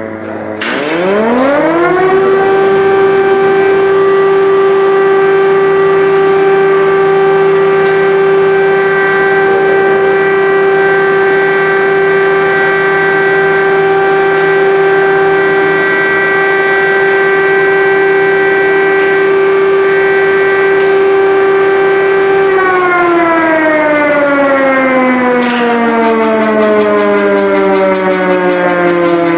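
Air-raid siren sounding an air-raid alert. About a second in it winds up to a steady wail, holds that one pitch for about twenty seconds, then slowly winds down in pitch near the end.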